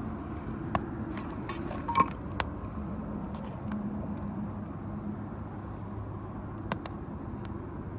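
Wood fire burning with a steady low rush and a few sharp crackling pops, the loudest about two seconds in.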